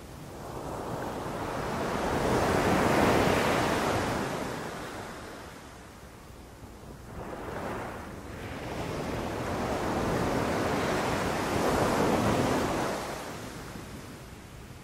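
Sea waves breaking on a beach and washing back, with no human activity. Two long surges build and fade, loudest about three seconds in and again about twelve seconds in, with a smaller wash between them.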